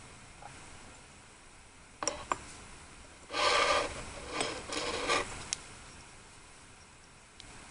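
Two short rasping scrapes, about a second each, with a few light clicks before and after, typical of a small utensil working food in a miniature cooking set.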